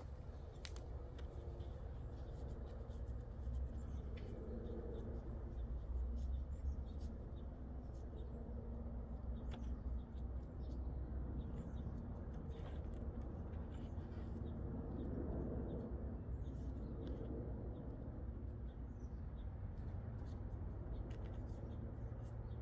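Faint scattered clicks and light taps of small metal parts being handled: an Allen key and a router bit's bearing being worked on, over a steady low room hum.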